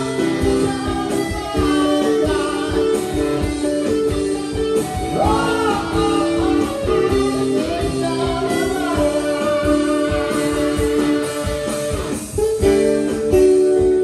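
A live band playing: guitar to the fore over a steady beat, with a short break about twelve seconds in before the music picks up again.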